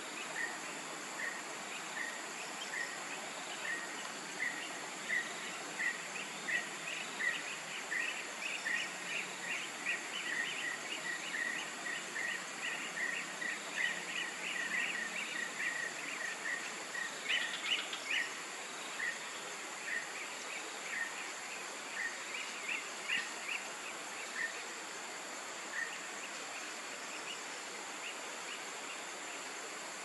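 Forest ambience: a steady high insect hum, with a short call repeated about twice a second over it. The call quickens and grows denser in the middle, has a louder cluster just past halfway, then thins out and stops near the end.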